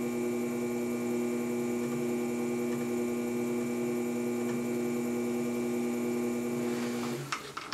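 Electric potter's wheel motor humming steadily as the wheel turns, then switched off about seven seconds in, followed by a few light clicks.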